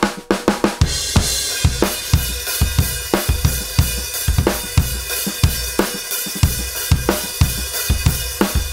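Drum kit groove featuring a 20-inch bass drum struck with a hard plastic beater, its resonant front head tuned a major third above the batter head for a punchy tone. Snare and hi-hat play along, with cymbals ringing from about a second in.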